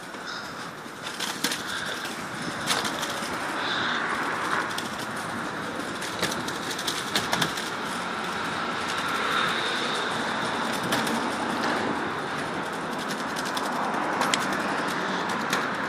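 Pink Space Scooter's small hard wheels rolling and rattling over brick paving, with scattered sharp clicks from the scooter as it is pedalled along.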